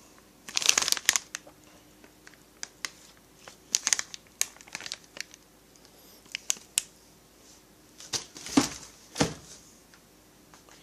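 Packaging crinkling and kit parts being handled, in scattered short rustles with a few sharp clicks between pauses.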